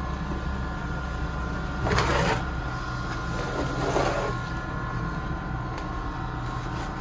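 Two short scraping rustles, about two and four seconds in, as a ficus ginseng's root ball and pot are set and shifted into a new pot of granular substrate, over a steady mechanical hum.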